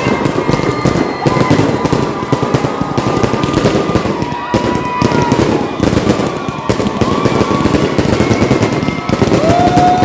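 Fireworks and firecrackers going off in a dense, unbroken crackle of rapid pops.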